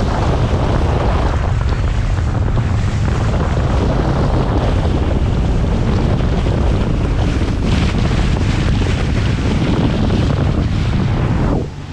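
Heavy wind buffeting the microphone over the steady rush of water and spray along the hull of a boat running fast. The noise drops out briefly just before the end.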